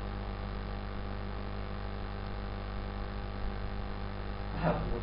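Steady electrical mains hum with background noise in the recording, and a brief short sound near the end.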